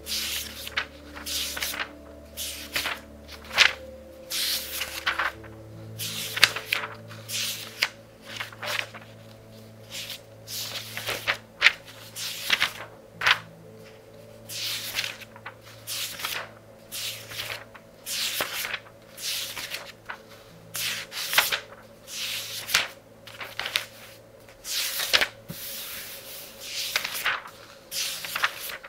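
Thin pages of a very thick book being turned quickly, one after another, each turn a short papery swish and rustle, about one or two a second. Soft music with held low notes plays faintly underneath.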